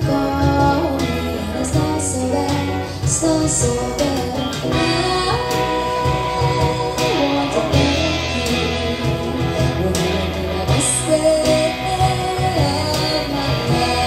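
Live band playing: a woman singing lead over electric guitars, with a steady bass and beat beneath.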